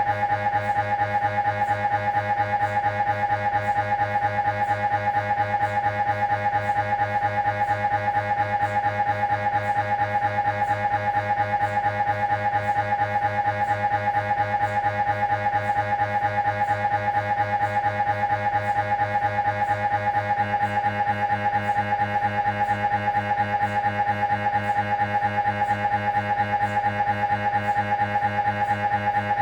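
Siemens Magnetom Avanto Fit 1.5-tesla MRI scanner running a spine scan sequence: its gradient coils give a steady, buzzing tone that pulses in a fast, even rhythm, its pitch holding steady.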